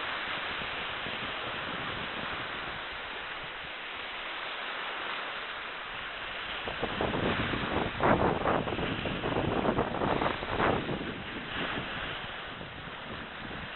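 Small sea waves breaking and washing up on a sandy shore, with wind noise on the microphone. The sound grows louder and more uneven about halfway through.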